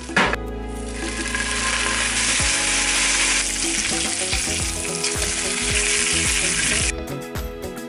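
An egg and then strips of bacon sizzling in a nonstick frying pan on a gas stove, with one sharp clack at the start. The sizzling stops abruptly about seven seconds in.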